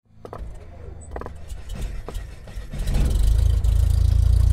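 Intro sound effect for an animated title card: a few clicks and swishes, then about three seconds in a loud, steady low rumble with a fast even pulse sets in.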